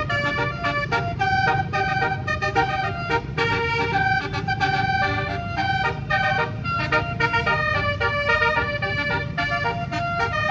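Tour bus's 18-note basuri musical air horn playing a quick melody, its notes changing several times a second, over a steady low rumble.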